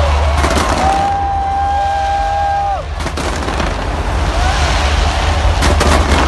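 Fireworks going off in sharp bangs: a few about half a second in, one at about three seconds and a quick cluster near the end, over steady crowd rumble. A long held tone sounds through the middle second and a half, with shorter gliding calls around it.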